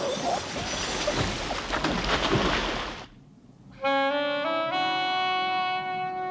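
Water splashing and rushing for about three seconds, then after a short lull music begins: a slow melody of long held notes rising in steps.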